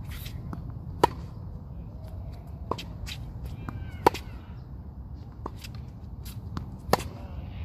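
Tennis ball struck by rackets in a baseline rally: three sharp pops about three seconds apart, the last the loudest, with fainter knocks between them.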